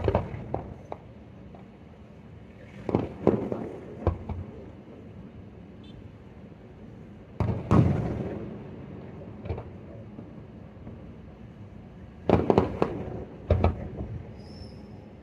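Fireworks shells bursting: sudden bangs, singly and in short clusters a few seconds apart, each followed by a brief rumbling decay.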